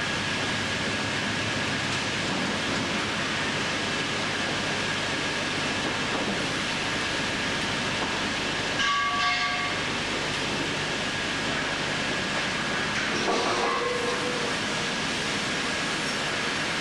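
Bandsaw line machinery running with a steady noisy hum and a faint constant whine, with two short squealing tones about nine and thirteen seconds in.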